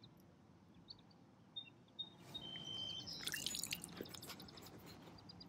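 Faint lapping and trickling of shallow river water at the shore, with a few short, high bird chirps partway through and some clicks near the end.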